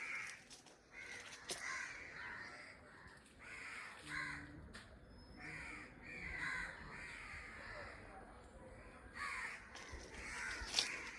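Birds calling over and over in short calls, roughly one a second, with a few sharp clicks in between.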